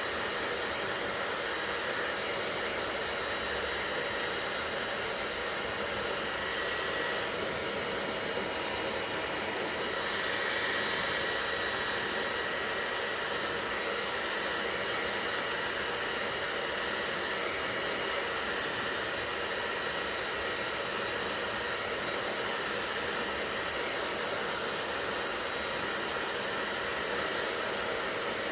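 Hair dryer running steadily: an even blowing rush with a faint steady whine in it.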